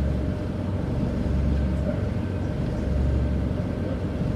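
Scania K94UB bus's rear-mounted nine-litre diesel engine idling, heard from inside the passenger cabin as a steady low drone that swells and eases in a slow beat, with a faint steady high tone above it.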